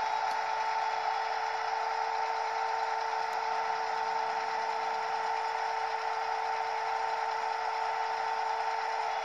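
Model SU46 diesel locomotive's sound decoder playing its diesel engine running sound through the model's small loudspeaker: a steady hum with a held tone, unchanging throughout.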